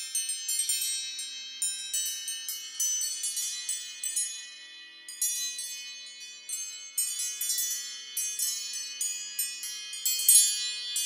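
An iPhone ringtone playing: a quick, busy run of high, bright chime-like notes that ring on and overlap one another.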